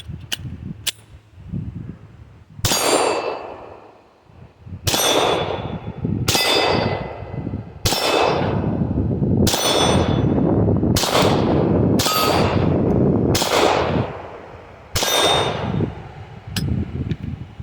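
Glock 20C 10mm pistol fired nine times at a slow, steady pace, each shot trailed by the long ring of struck steel targets. A couple of faint sharp clicks come before the first shot.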